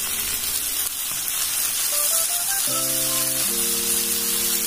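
Chicken, onion and capsicum stir-fry sizzling steadily in a pan. Soft background music with rising notes and held chords comes in about two seconds in.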